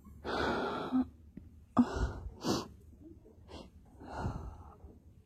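A person breathing noisily as a sneeze comes on: a long drawn breath, then several short sharp huffs and gasps, and another long breath near the end.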